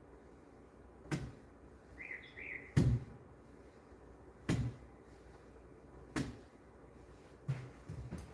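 A series of sharp knocks repeating every one and a half to two seconds, the loudest about three seconds in, with a brief high chirp just before it.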